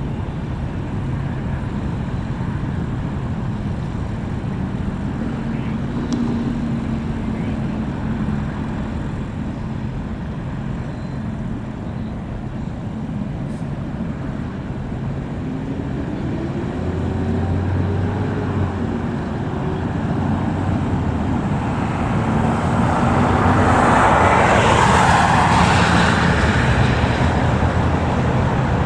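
Steady road traffic rumble. Near the end, something passes loudly, swelling up and easing off again.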